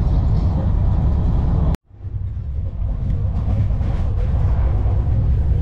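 Steady low rumble of an Indian Rajdhani express train, cut off abruptly for a moment about two seconds in and then fading back in.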